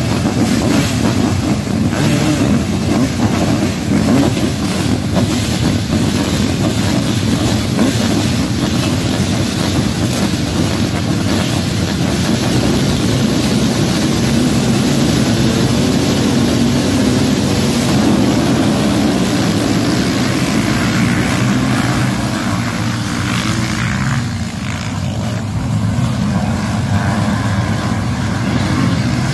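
A full grid of sidecarcross outfits running their motocross engines together, a dense, loud, continuous racket of many engines held on the throttle at the start and then carrying on as the pack races away; the sound eases a little near the end.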